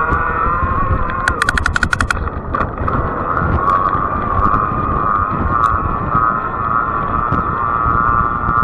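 A fat-tire electric bike rolling on pavement: a steady buzzing hum from the tyres and drive that wavers slightly in pitch, over wind rumble on the microphone. A quick run of sharp clicks sounds about a second in.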